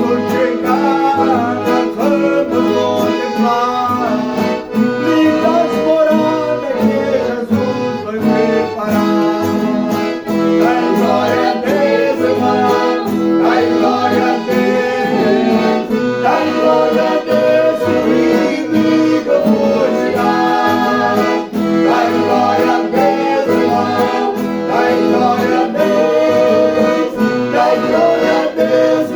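Accordion (gaita) playing a hymn tune in held, steady chords, with guitar strumming a regular rhythm underneath.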